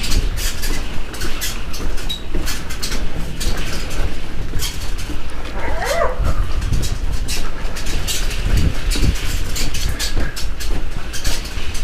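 Wheels of a loaded dock cart rolling and clattering over the dock boards, with a steady low rumble and many small knocks.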